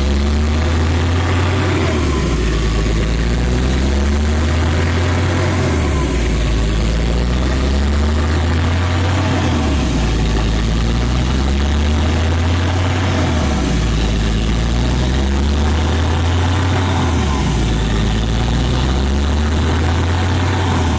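Truck-mounted borewell drilling rig running while drilling, its engine and air compressor droning steadily with a low beat that swells and falls about every four seconds, as air blows dust and cuttings out of the bore.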